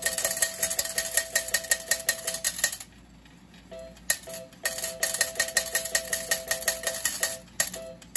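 IGT S+ Pinball slot machine's coin hopper paying out quarters into the metal coin tray: a rapid clatter of coins, several a second, with the machine's steady electronic payout tone. It stops about three seconds in and starts again a second and a half later, then ends near the end; the hopper is paying out without a hitch.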